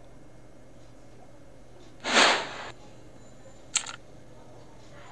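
A short, loud rush of breath noise, like a quick sniff or nasal exhale, about two seconds in, then a brief sharp click near the end, over a faint steady hum.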